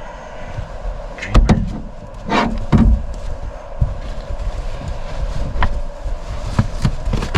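A handful of sharp knocks and clatters, with a short scrape about two and a half seconds in, over a steady low hum.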